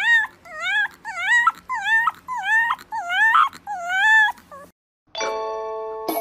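A fluffy white puppy howling and whining in a string of short cries, each rising then falling in pitch, about two a second. The cries stop about four and a half seconds in, and after a brief silence a ringing chime of several steady tones begins.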